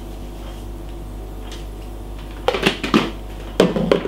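Clicks and knocks of a spice jar being handled and set down on a wooden chopping board, in two quick clusters over the second half, over a steady low hum.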